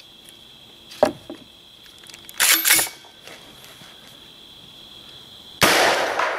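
X-Products Can Cannon golf ball launcher, a blank-powered launcher on an AR-15, firing a golf ball about five and a half seconds in: one sharp, loud bang with a long ringing echo. Before it come a short click about a second in and a brief rattle around two and a half seconds as the launcher is handled and readied.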